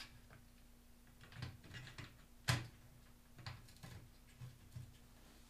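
Light clicks and knocks of aluminium rod-rack parts being handled and fitted together, with one sharp knock about two and a half seconds in.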